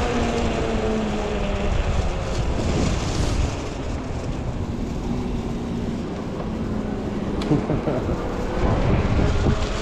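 Wind buffeting the microphone while riding a fat-tire e-bike along a road, with a steady humming tone that slowly falls in pitch over the first couple of seconds and comes back near the end.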